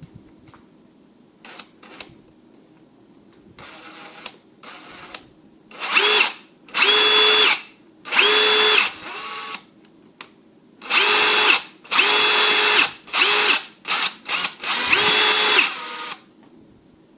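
Craftsman V20 brushless 3/8-inch impact wrench run with no load in a series of trigger pulls: a few light clicks first, then a couple of soft low-speed squeezes, then about ten short full-speed bursts, each a motor whine that rises quickly to pitch, holds and stops.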